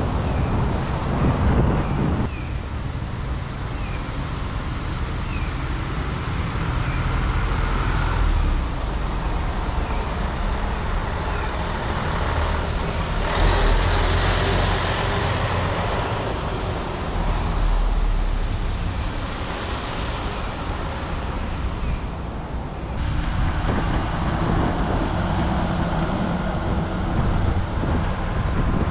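Buses driving through a bus terminal over steady traffic noise. An airport limousine coach passes close by about halfway through, the loudest moment.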